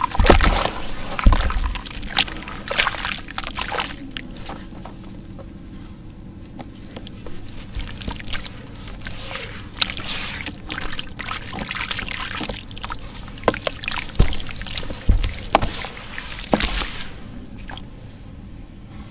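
Hands sloshing and splashing in a basin of muddy water while a soaked block of pure sand crumbles apart in it, with uneven splashes and trickles. The splashing is busiest in the first few seconds and again late on, then dies down near the end.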